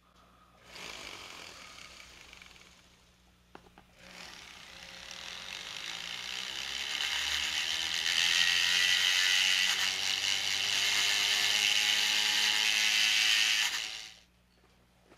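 Small cordless rotary tool grinding the burr off the end of a die-cast toy car's axle, to free the wheels. It runs briefly about a second in and stops with a click. Then it starts again, its whine rising in pitch as it spins up, grinds steadily for about ten seconds and cuts off near the end.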